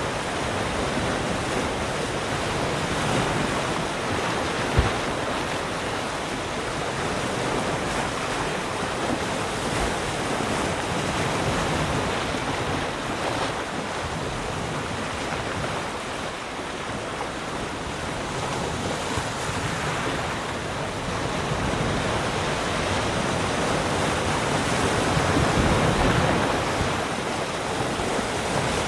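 Small waves lapping and washing around rock, a steady wash of water that swells and eases over several seconds, with a brief thump about five seconds in.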